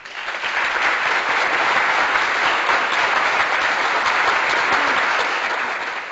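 Applause: many hands clapping in a dense, steady clatter that fades out near the end.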